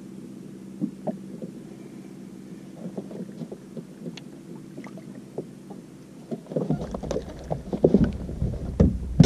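A bass being reeled to the boat and landed: faint clicks over a steady low hum, then from about two-thirds of the way through, splashing and a run of sharp knocks as the fish comes to the boat and is handled aboard.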